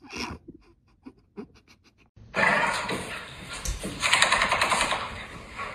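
A dog growling in a rough, rapid rasp, loud from about two seconds in, in two long stretches. Before that, a few faint soft ticks.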